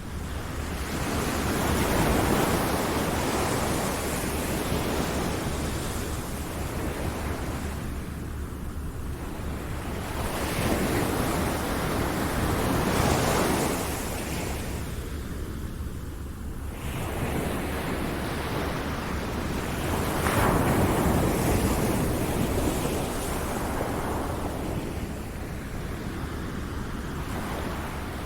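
Ocean waves surging in and washing back, swelling and fading in slow rolls about nine seconds apart.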